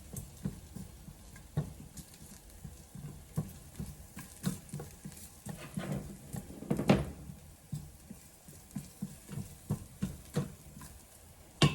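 Irregular light knocks and scrapes of a utensil stirring garlic sautéing in olive oil in an Instant Pot's inner pot, with a louder clatter about seven seconds in.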